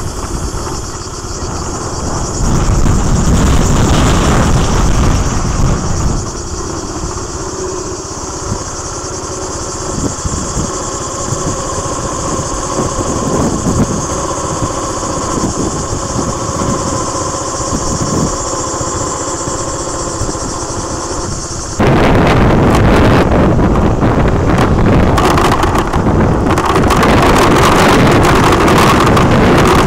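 Wind rumbling on the microphone over a steady high-pitched drone. About two-thirds of the way in it cuts suddenly to a louder, denser rumble of wind with the diesel engine of a fire truck coming up the road.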